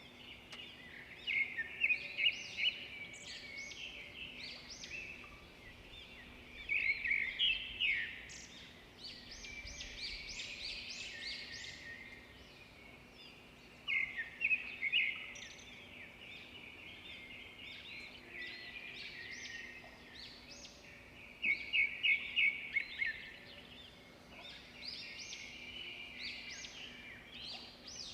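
Several birds singing and chirping together. Loud bursts of fast repeated notes come about every seven seconds between quieter overlapping calls.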